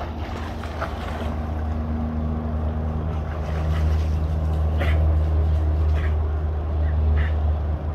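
A motor engine running steadily with a low hum, growing louder about halfway through and easing off near the end.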